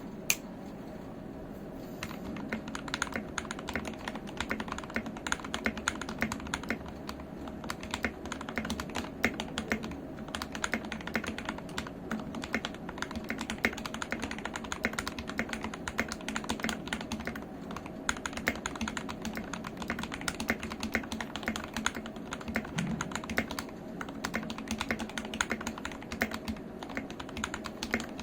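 Fast, continuous typing on a GK68XS mechanical keyboard with lubed and filmed Gateron Red linear switches: a dense, irregular patter of keystrokes. It begins in earnest about two seconds in, after a single sharp click.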